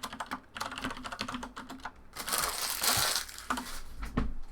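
Rapid light clicking, like typing on a keyboard, then a crinkling rustle of plastic or foil wrapper lasting about a second, starting about two seconds in. A couple of dull low thumps follow near the end.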